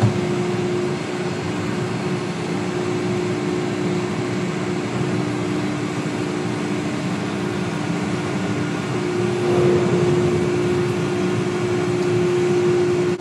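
Ship's deck crane and hydraulic grab machinery running with a steady droning hum, a little louder from about nine seconds in, while the grab is test-run after its piston rod replacement.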